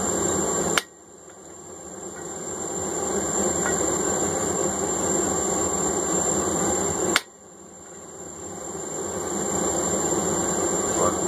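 A forge running loudly with a steady rushing noise. Two sharp clicks come about six seconds apart, and after each the noise drops away and builds back up over a few seconds.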